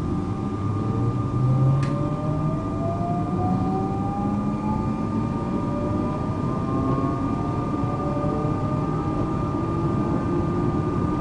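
SNCB AM96 electric multiple unit starting off, heard from on board. Its traction motors whine in several tones that rise steadily in pitch as the train accelerates, over a low running rumble, with one short click about two seconds in.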